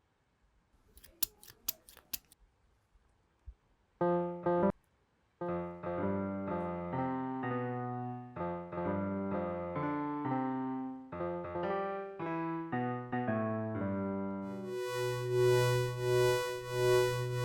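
A quick run of about six sharp clicks, then an electric-piano melody in separate notes, which gives way near the end to a held synthesizer chord.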